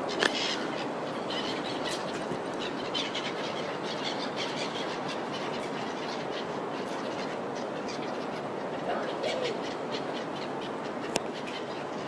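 Seagulls calling now and then over a steady rush of outdoor background noise, with a brief sharp sound just after the start.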